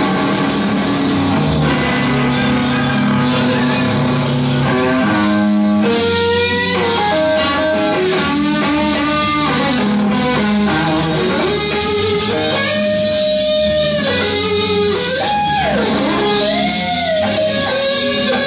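Stratocaster-style electric guitar playing blues. A held low passage for the first few seconds gives way to a lead line with notes bent up and down.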